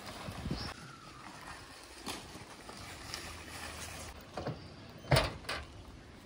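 Faint crinkling of a plastic banner cover being pulled off a car. About five seconds in come a couple of sharp clicks and a knock, a Maruti 1000's door latch releasing as the door is opened.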